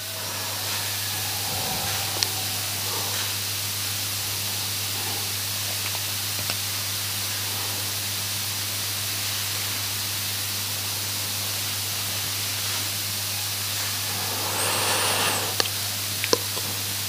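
Steady hiss from the microphone and recording chain with a low electrical mains hum underneath, heard in a pause between verses. There are a few faint clicks, and a breath is drawn in near the end.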